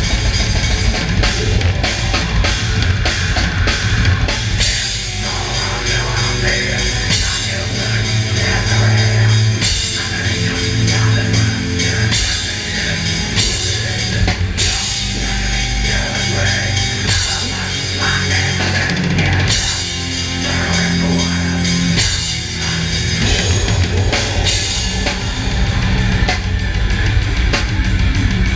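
Live death metal played at full volume, heard from the drum cam. A drum kit is struck hard with crashing cymbals over the band's heavy guitars and bass. The drumming runs very fast at the start and again near the end.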